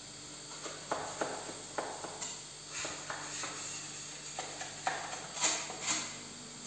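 Small metal spatula scraping over gypsum plaster on a wall in short, irregular strokes, the strongest a little past the middle.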